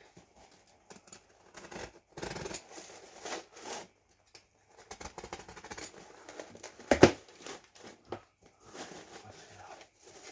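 A cardboard shipping box being cut and torn open and its packing rummaged through: scattered snips, tearing and crinkling, with one loud knock about seven seconds in.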